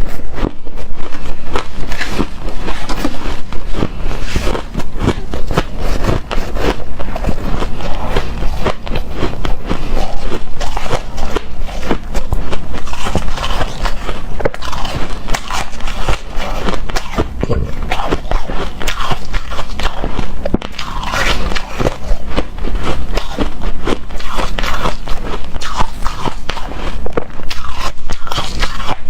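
Close-miked biting and chewing of hard, frosty shaved ice: a dense, continuous run of loud, crunchy, crackling bites.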